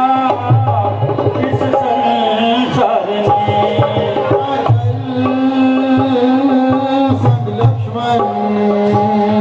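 Instrumental interlude of a Hindi song: long held melody notes over a hand-drum rhythm, with sharp percussion strokes scattered through it.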